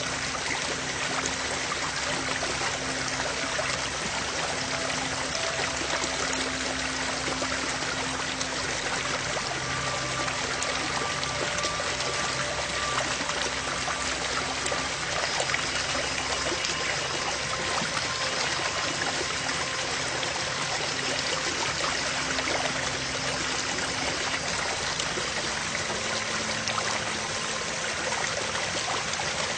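Soft background music of slow held notes under a steady rushing noise like running water.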